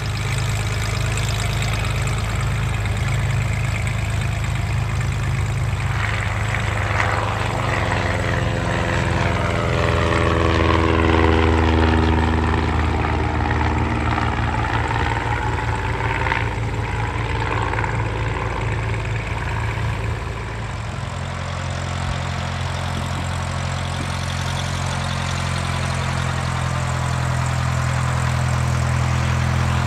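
Single-engine light aircraft piston engines and propellers idling as they taxi past. First a Stinson 108 Voyager goes by close, its tone shifting in sweeping arcs as it passes. Later a Christen A-1 Husky's engine takes over.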